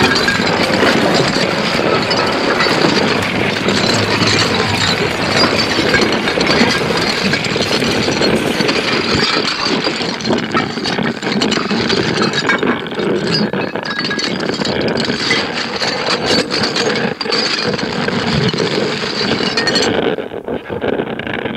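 Experimental harsh-noise / musique concrète recording: a dense, continuous wash of noise shot through with many small clicks. About twenty seconds in, the highest part of the sound cuts away abruptly.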